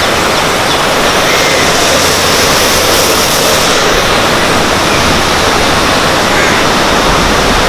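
Falling water from a dam's waterfall rushing steadily and loudly, an even noise with no breaks.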